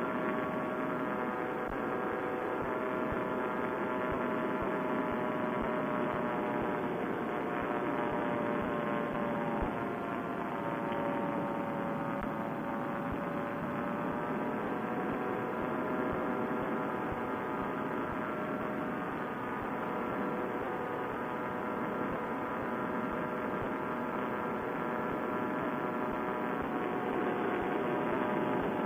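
Vittorazi Moster two-stroke paramotor engine and propeller running steadily in powered flight, a constant drone whose pitch dips slightly and recovers near the middle.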